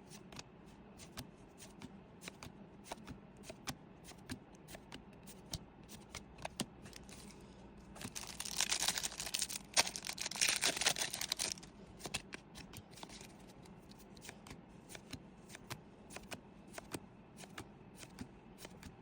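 Pokémon trading cards being handled and slid through one by one, with many soft clicks and flicks. For about four seconds in the middle there is a louder crinkling rustle, typical of a foil booster pack wrapper being torn open.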